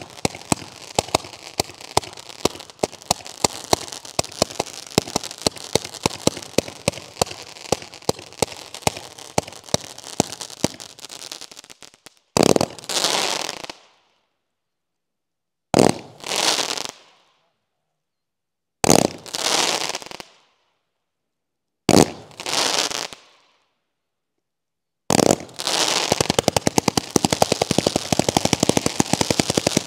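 A 156-shot consumer fireworks cake firing. For about the first twelve seconds it is a rapid volley of sharp shots. Then come five separate bursts, each a sharp bang fading away over a second or so with silence between, and the rapid volley picks up again near the end.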